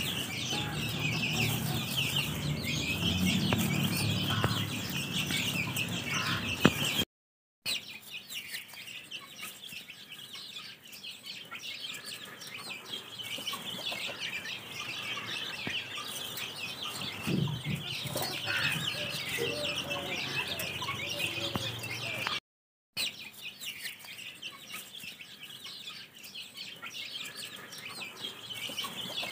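A flock of chicks peeping continuously as they peck at food, many short high chirps overlapping, with lower hen clucks in the first few seconds. The sound cuts out twice for a moment.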